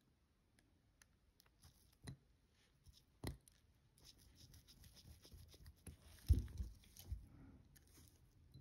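Faint clicks and scratching of a watchmaker's small hand tools working on a watch movement as the setting lever spring is fitted, with a dull knock about six seconds in.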